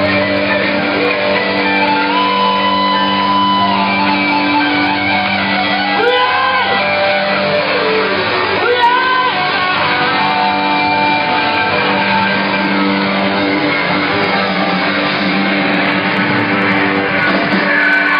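Live rock band playing loud, heard from the crowd through a phone's microphone: electric guitars hold sustained chords, with two sliding notes about a third and halfway through.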